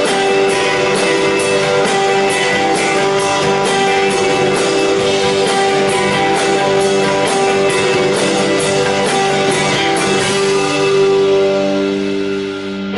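Live rock band music led by guitar, sustained chords over a steady ticking beat. About ten seconds in the beat stops and a final chord rings out, swelling and then fading at the end.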